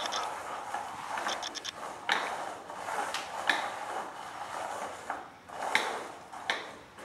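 Small plastic treat cups being shuffled on a hardwood floor, sliding and knocking down in several sharp clicks. Two short bursts of rapid high ticking from a camera's autofocus motor.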